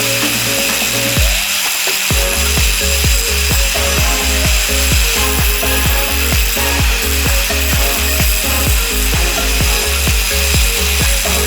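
Background music with a steady bass beat, over the steady high grinding noise of a grinder wearing against steel, as in spark-testing a steel sample.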